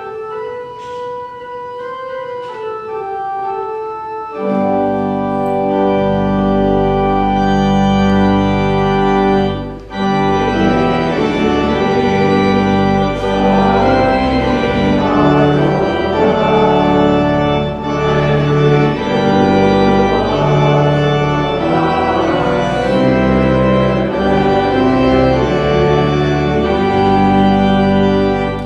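Church organ playing the offertory: a soft single melody line for the first few seconds, then the full organ with deep bass pedal notes comes in about four seconds in and plays on, loud and steady.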